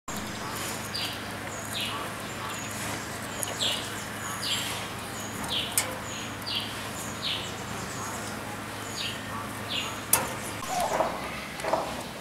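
African grey parrots giving a regular series of short chirping calls, roughly one a second, over a steady low hum. About ten seconds in there is a knock, followed by lower, rougher sounds.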